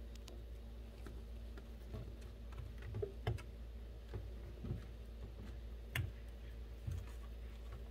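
Hands handling a maitake (hen of the woods) mushroom cluster in a steel sink: faint scattered clicks and taps with a few soft thumps, over a low steady hum.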